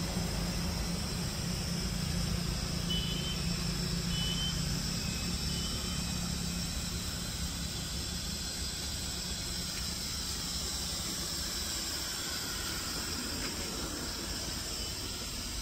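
Steady hiss of a gas burner flame under a cooking pot. A low hum fades out over the first several seconds, and a few short high chirps come a few seconds in.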